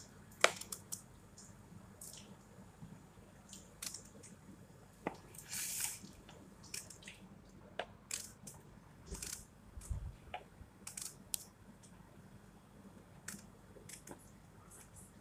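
Small kitchen knife cutting a raw aubergine into pieces by hand, with scattered sharp clicks, a short scraping slice about six seconds in, and light knocks as pieces drop into a plastic tray.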